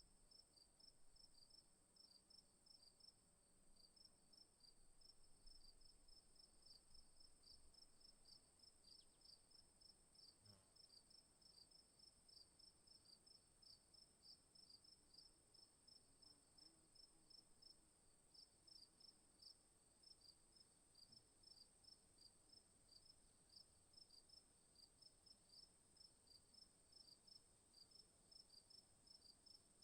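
Faint insect chorus, cricket-like: a steady high-pitched drone with quick regular chirps under it, several a second.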